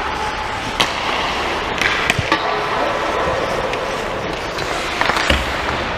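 Ice hockey play: skates scraping on the ice under a handful of sharp clacks of sticks and puck, the loudest about five seconds in.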